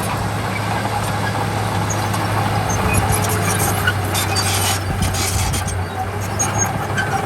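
Heavy diesel earthmoving machinery running steadily at work, with a deep, even engine hum and a stretch of metallic rattling in the middle.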